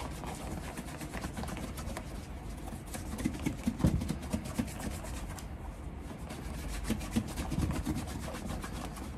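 Cloth rubbing delicate cream into the leather of a dress shoe: a continuous soft scrubbing with fine ticks, and a few dull low knocks about a third of the way in and again near the end.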